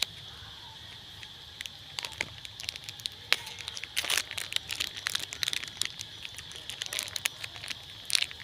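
Plastic snack-cake wrapper crinkling and crackling in irregular bursts of sharp clicks, densest about halfway through and again near the end, over a steady high insect-like drone.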